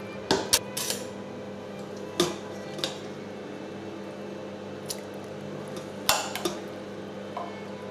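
Steel pot clinking and knocking against a stainless mesh sieve and stockpot rim as cooked chicken bones and vegetables are tipped into the sieve with wet squelches. The clinks come in small clusters, a few strikes near the start, more around two and six seconds in.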